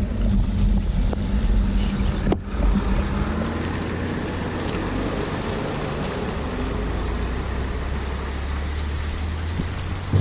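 Steady noise of riding a bicycle in the rain, heard through a bicycle-mounted action camera: wind rumble on the microphone and wet road hiss. Background music fades out in the first two or three seconds.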